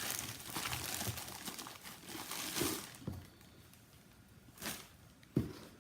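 Packaging rustling and crinkling as a box is rummaged through, dying down after about three seconds, with a brief rustle and then one sharp knock near the end.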